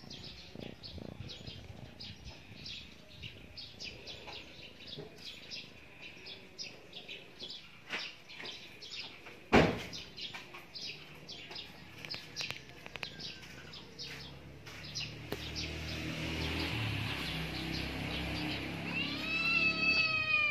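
Small birds chirping quickly and steadily, several short chirps a second, with one sharp knock about ten seconds in. Near the end a black-and-white domestic cat starts a long, drawn-out meow.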